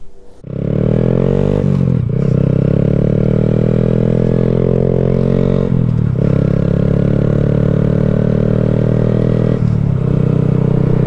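2020 Honda Grom's 125 cc single-cylinder four-stroke engine running as the bike is ridden along a road. The note is broken briefly about 2, 6 and 10 seconds in.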